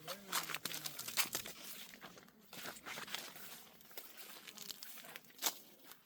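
Dry maize leaves and stalks rustling and crackling as people push through the crop on foot, with one sharp snap about five and a half seconds in.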